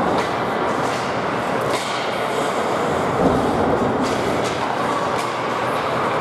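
Ice hockey game sound: a steady rush of skating and arena noise, with a few sharp clacks scattered through it.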